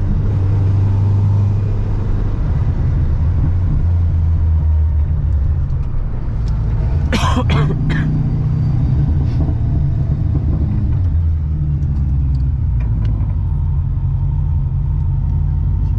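Supercharged LS3 V8 of a Corvette C6 cruising at low revs: a steady, deep exhaust rumble. A brief sharp noise cuts through about seven seconds in.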